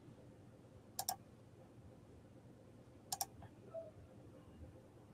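Two quick double clicks at a computer, about two seconds apart, over faint room tone.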